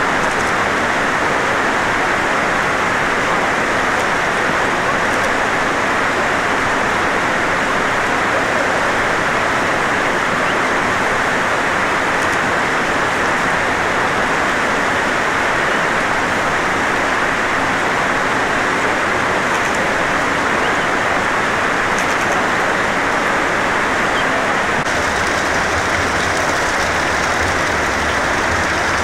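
Steady rushing of flowing water, an even noise that does not change in level. A faint low rumble joins near the end.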